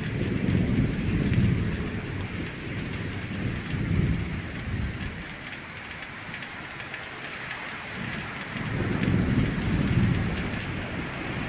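Rainstorm: a steady hiss of rain with low rumbles of thunder that swell up three times, about a second in, around four seconds, and again near the end.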